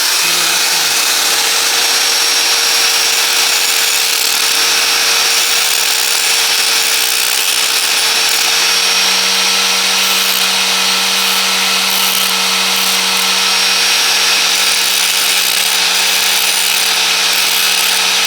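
A power grinder running continuously, grinding out rusted mounting bolts, with a steady whine over a loud hiss.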